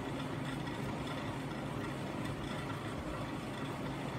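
A steady low hum with a faint flutter, unchanging throughout.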